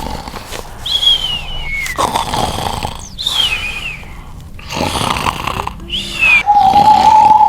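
A man's exaggerated, comic snoring: two rasping snores about four seconds apart, with whistles that slide downward between them and a held whistle near the end.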